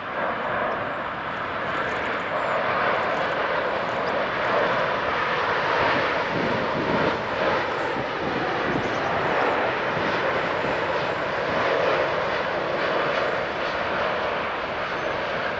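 Jet engine noise of a Boeing 787-9 on landing approach with its gear down, from its General Electric GEnx-1B turbofans and the air rushing past. It swells at the start and then holds as a steady, dense rushing sound.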